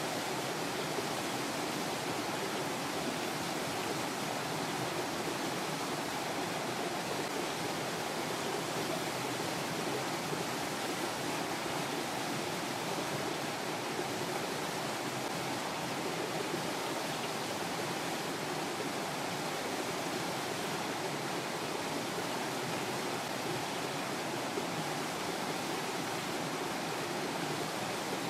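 Steady, even rushing noise with nothing standing out from it.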